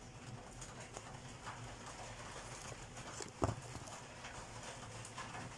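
Small clicks and light taps of a printed circuit board being handled while a replacement transistor's leads are pushed into it, with one sharp knock about three and a half seconds in.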